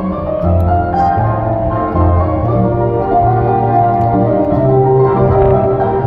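Live orchestra playing: many held notes sounding together over a low bass line that pulses about once or twice a second.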